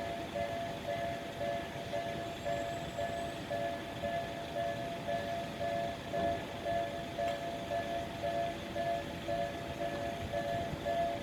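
Japanese level-crossing warning alarm ringing its electronic two-tone bell, repeating about twice a second without pause, over the rumble of a train running through the crossing.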